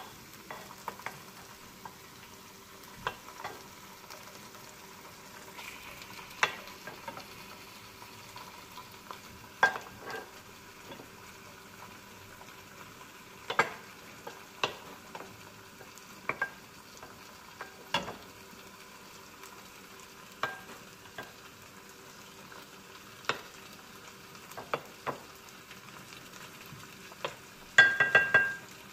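Chicken pieces and diced onion frying in a nonstick pan with a low, steady sizzle, broken by scattered sharp clicks and taps of a utensil on the pan and dish. A short run of ringing clinks near the end.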